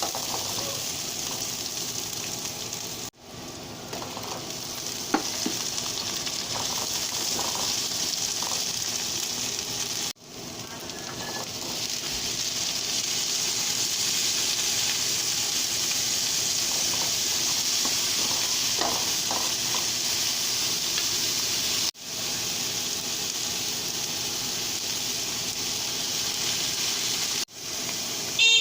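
Pork and vegetables sizzling steadily in a hot frying pan during a stir fry, with a few light knocks of a utensil against the pan. The sizzle breaks off abruptly and resumes three or four times.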